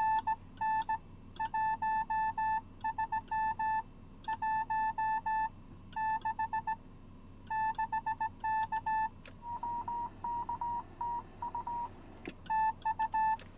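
Morse code (CW) tone from an amateur radio transceiver: a steady beep keyed on and off in strings of dots and dashes. About two-thirds of the way through, a fainter, rougher Morse tone at a slightly higher pitch takes over for a couple of seconds, framed by two clicks, before the louder keying returns.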